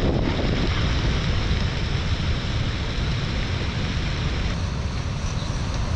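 Severe tropical storm wind buffeting the microphone over the rush of surf, a steady loud noise with heavy low rumble.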